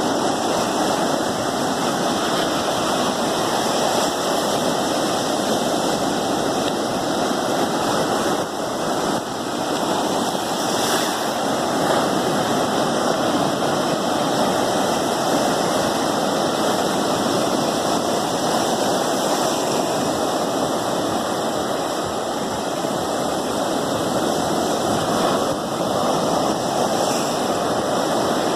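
Steady, unbroken rushing noise of water.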